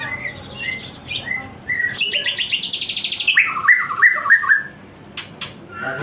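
White-rumped shama (murai batu) singing: a thin high whistle and a few short notes, then a fast trill of about a second, then a run of loud whistled notes that fall in pitch, the loudest part of the song.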